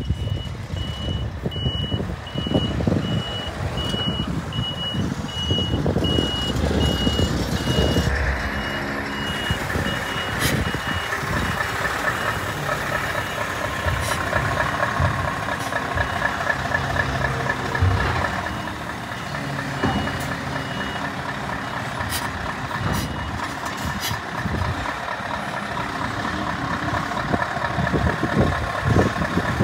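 Scania R580 truck's V8 diesel engine running as the truck drives up at low speed and moves past, its note shifting as it goes. A reversing alarm beeps steadily through the first three-quarters and then stops.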